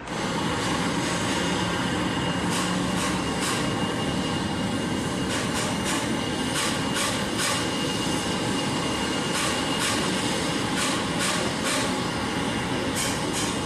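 Airbus A320 jet engines running as the airliner taxis: a steady rushing hum with a thin high whine, broken by short irregular crackles.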